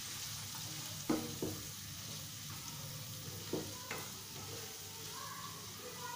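Black chickpeas (kala chana) in spice masala sizzling in a pan on the gas stove while a spoon stirs them, with a few short clinks of the spoon against the pan. They have been cooking covered on low flame for five minutes and are being checked.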